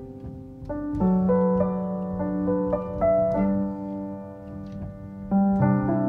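Background piano music: a slow melody over sustained chords, with a new chord struck about a second in and another near the end.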